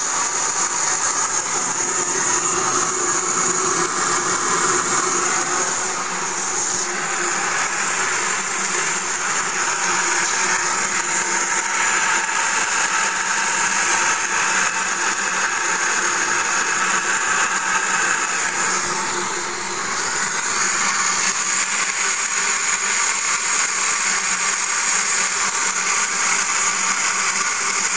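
A steady mechanical whirring from a Mercedes G400, the 'weird noise' it is making, with a high-pitched hiss throughout. It eases slightly twice, briefly each time.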